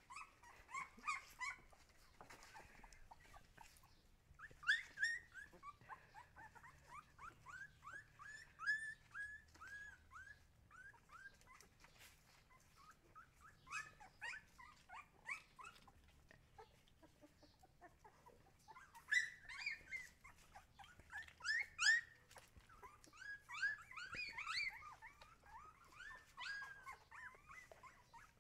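Husky puppies whimpering in short, high-pitched cries, several a second, coming in runs with brief pauses between.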